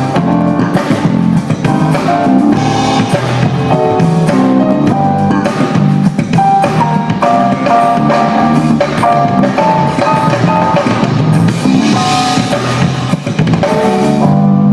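Live band playing at a sound check: a drum kit with bass drum and snare under held, changing pitched notes from the other instruments.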